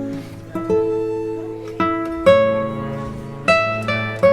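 Background music: an acoustic guitar plucking single notes and chords, each ringing and fading.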